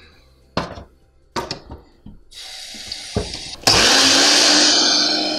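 Water running, then an electric blender switched on, its motor spinning up to a steady speed: the blender being rinsed out right after use. Two light clicks come before the water starts.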